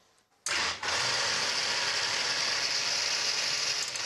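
Countertop blender switched on about half a second in, then running steadily as it purées a pumpkin cream soup.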